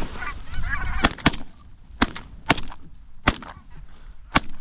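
Six shotgun shots fired in quick succession by two hunters, uneven in spacing, the first two about a quarter second apart and the last near the end. Geese honk over the first second.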